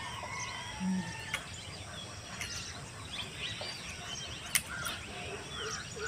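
Birds chirping and calling over a steady outdoor background hiss, with a few sharp clicks.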